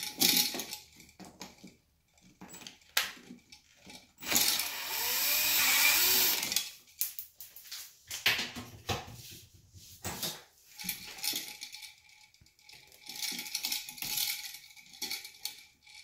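Small metal clicks and scrapes of wire strippers and copper wires being worked in a light-switch box, with a louder rasping rustle lasting over two seconds about four seconds in.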